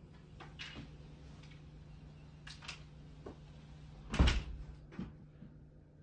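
A loud thump about four seconds in and a softer one about a second later, among light knocks and rustles, over a steady low hum.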